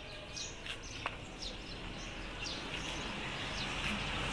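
Small birds chirping, short high falling chirps repeated every half second or so, over a steady outdoor hiss that grows louder near the end, with a single click about a second in.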